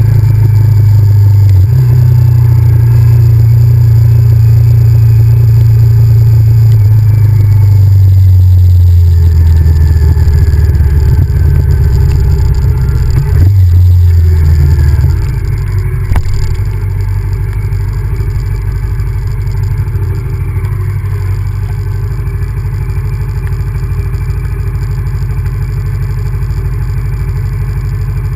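Honda VTR1000F's 90-degree V-twin engine running under way, loud with a few shifts in pitch for about the first half, then easing off about halfway to a quieter, steadier note.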